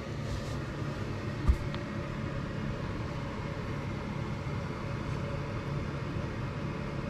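A steady low mechanical hum, with one dull thump about a second and a half in.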